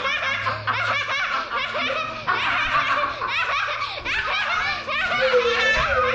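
Several people laughing together, the laughter running on without break.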